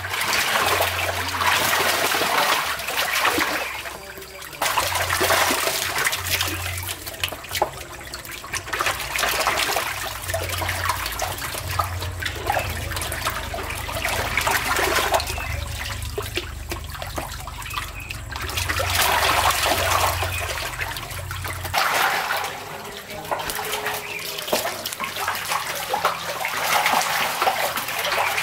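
Catfish thrashing and splashing in shallow water while a plastic basket scoops through it, in repeated surges of splashing every few seconds.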